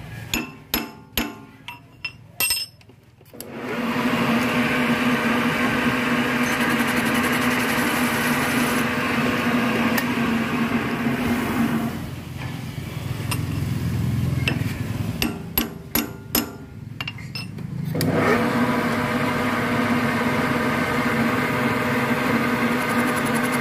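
Cylinder boring machine boring out the cylinder opening of an aluminium motorcycle crankcase: its motor runs with a steady hum while the cutter works. The hum stops twice for a short run of sharp metallic clicks and taps, and starts again about three and a half seconds in and again about eighteen seconds in.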